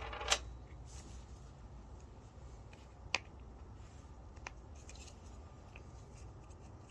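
Faint clicks and taps of small lock parts being handled, with a sharp click about three seconds in and another about a second and a half later, over a low steady room hum.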